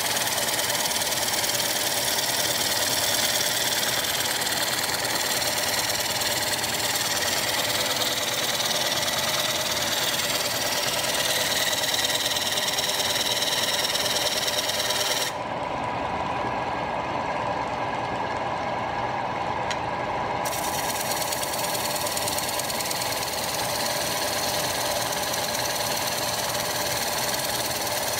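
Wood lathe running while a bowl gouge cuts a spinning spalted sycamore bowl, a steady machine hum with the hiss of the tool peeling shavings. A little past the middle the higher hiss drops away for about five seconds, then comes back.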